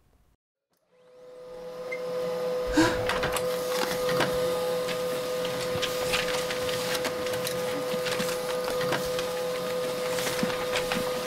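A printer running, fading in about a second in: a steady motor whine with a rapid clatter of clicks and rattles as sheets feed through, and loose paper rustling alongside.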